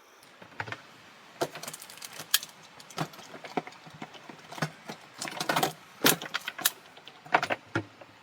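Irregular clinks and knocks of hard objects being handled, many in quick, uneven succession with short clusters.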